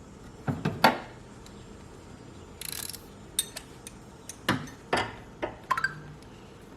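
Hand tools and metal fasteners clinking and knocking as parts are tightened down: a few sharp metallic clicks and taps, with a short rasp between them.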